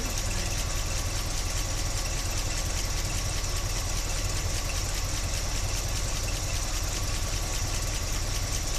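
1976 Chevy Blazer's engine idling steadily, heard close up in the engine bay. The owner is running it to track down a noise he calls horrible.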